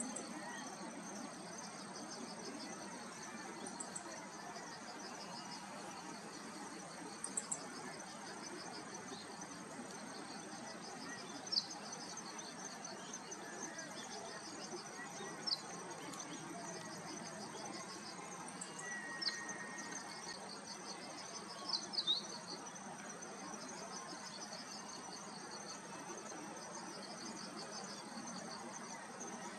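A steady, high pulsing trill of crickets, over which a meadow bunting gives a handful of short, sharp call notes, singly or two or three in quick succession.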